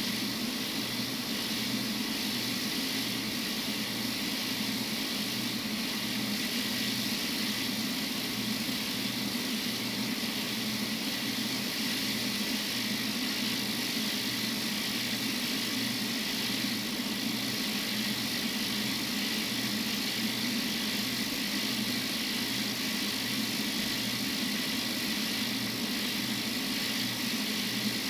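Rainbow RainMate humidifier running: its small electric motor hums steadily while the spinning impeller churns and splashes the water in its glass bowl, giving an even watery hiss over the hum.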